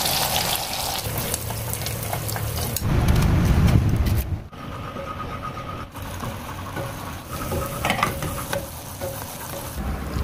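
Chicken wings deep-frying in a pot of hot oil with a steady sizzle, which breaks off abruptly about four and a half seconds in and leaves a quieter stretch.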